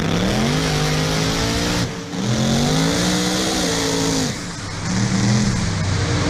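Drag-racing truck's engine, heard from an onboard camera, accelerating hard down the strip. Its pitch climbs, drops briefly at gear changes about two and four seconds in, then climbs again.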